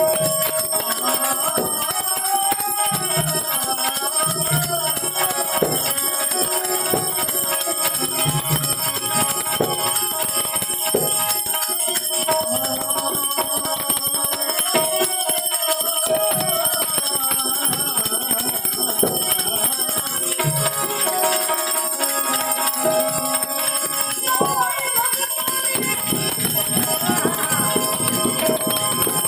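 Devotional bhajan: a harmonium playing while a man sings a bending, ornamented melody, over a steady jingling of small bells keeping time.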